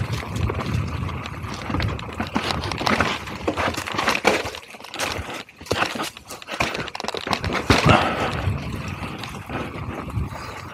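Mountain bike descending a dry dirt singletrack covered in dead leaves: tyres rolling and crunching over dirt and leaf litter, with the bike rattling and knocking irregularly over the bumps. It eases off briefly about five seconds in.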